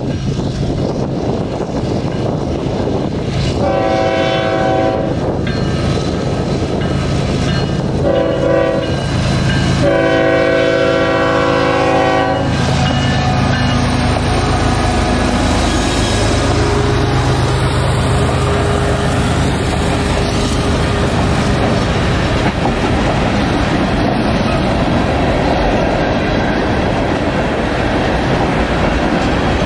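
Norfolk Southern freight locomotive's air horn sounding a grade-crossing warning: a long blast, a short one, then a final long one. The diesel locomotive then passes and its freight cars roll by with steady wheel clatter.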